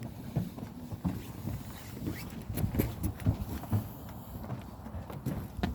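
Footsteps of a hiker climbing a trail, a string of uneven low thuds and scuffs.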